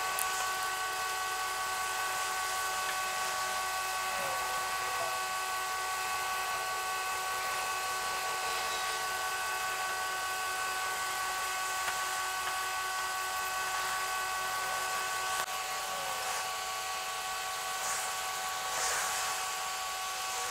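Diesel engines of heavy-haulage lorries running, the recording sped up fourfold so that their note becomes a steady high-pitched whine, with a few brief pitch glides.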